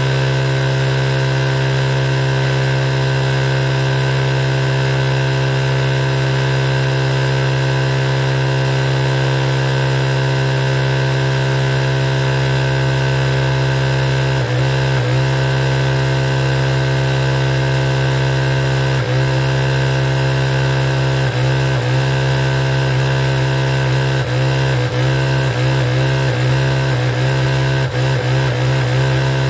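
Sewing machine running steadily at speed with an even hum, slowing briefly about halfway through and then in several quick dips near the end.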